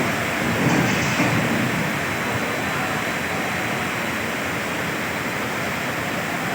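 Floodwater rushing, a steady even noise with no let-up, a little louder in the first second or so.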